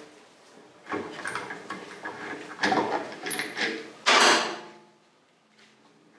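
A run of irregular knocks and scrapes of hard objects being handled, the loudest a short scrape about four seconds in.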